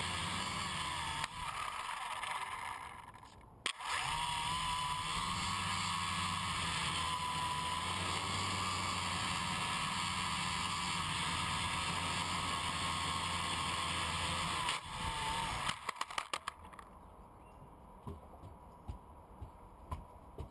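Gaui 330X quadcopter's electric motors and propellers running, heard from the onboard camera as a steady hum with a wavering whine. The sound dips and picks up again about three and a half seconds in, then cuts off about fifteen seconds in with a quick run of clicks, followed by scattered light knocks.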